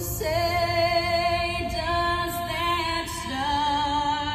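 A woman singing a slow song, holding long notes of about a second each with vibrato, with a low rumble underneath.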